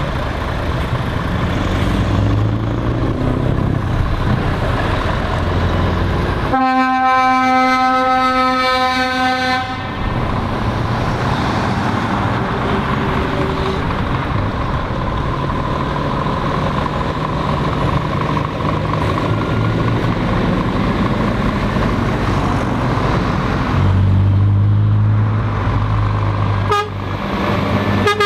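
Heavy lorries driving past with diesel engines running, and a truck horn sounding one long blast of about three seconds roughly a quarter of the way in. A lorry passes close with a deeper engine rumble near the end, followed by a short toot.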